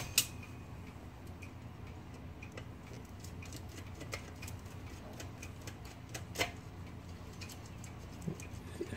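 Scattered light clicks and taps of an old Olivetti Lettera 32 typewriter's metal parts being handled, at an uneven pace, with one sharper knock about six seconds in.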